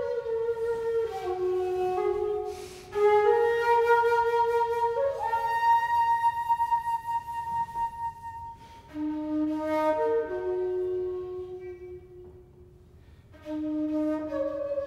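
Solo flute playing a slow melody of long held notes in breath-length phrases, with a pause a little before the last few seconds before a new low note begins.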